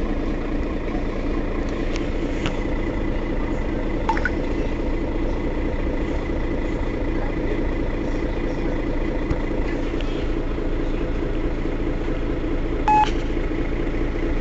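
Mercedes-Benz Citaro facelift city bus idling steadily at a stop. A short electronic beep sounds about 13 seconds in.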